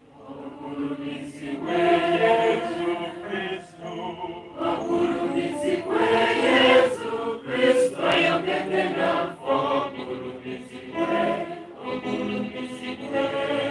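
Choir singing in harmony, phrase by phrase with short breaks, as the sung response that follows the Gospel reading at Mass.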